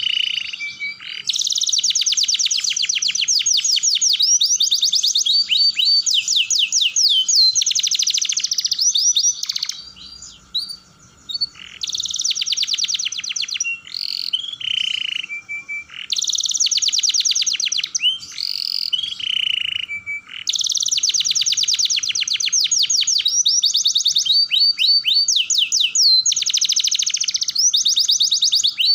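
Domestic canary singing long phrases of fast rolling trills, each made of rapidly repeated notes. The song breaks off briefly about ten seconds in, then resumes.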